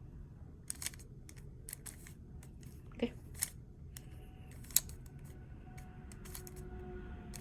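A plastic 3x3 Rubik's cube being turned by hand through an algorithm: an irregular run of sharp clicks as its layers snap round, the loudest a little under two-thirds of the way through.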